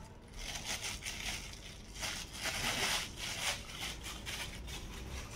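A thin clear plastic bag crinkling and rustling as a handheld microphone is pulled out of it and the wrapping is handled. The crackling comes in irregular bursts and is loudest about two to three and a half seconds in.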